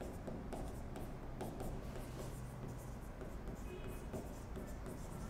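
Felt-tip marker writing on a whiteboard: faint, short, irregular scratching strokes as letters are written, over a low steady hum.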